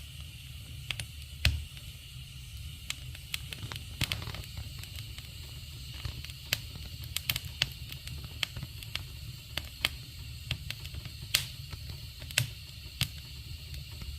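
Fire crackling: irregular sharp pops, the loudest about a second and a half in, over a steady hiss and a low rumble.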